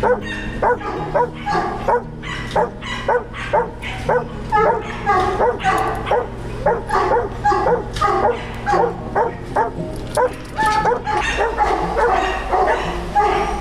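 Kennel of hunting dogs barking steadily, short sharp barks, about two a second and overlapping one another, mixed with some higher yips.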